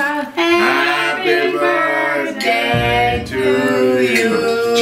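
A small group of men and women singing together, unaccompanied.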